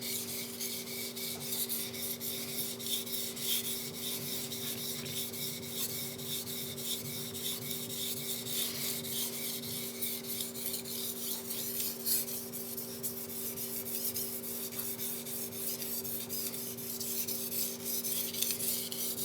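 A Moritaka Aogami Super gyuto being stroked back and forth on a wet Tajima natural whetstone: a continuous run of gritty rubbing strokes through the stone's mud, over a steady low hum.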